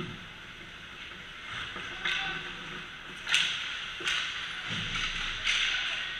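Ice hockey rink sounds: skate blades scraping and hissing on the ice, with a few sharp cracks of sticks and puck, the loudest about a third of the way through, and a dull thud later on.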